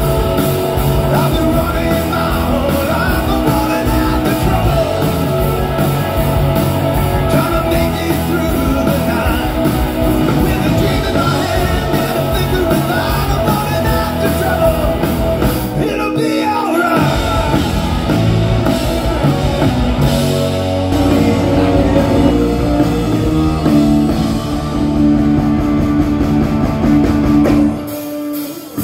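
Live rock band playing: electric guitars, bass guitar and drum kit, with singing. The bass and drums drop out briefly about halfway through.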